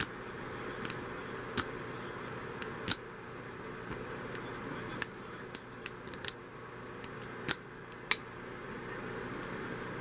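Offset diamond pick and tension wrench raking and picking the keyway of an old riveted steel padlock: about a dozen sharp metal clicks and ticks at irregular spacing as the pins are worked.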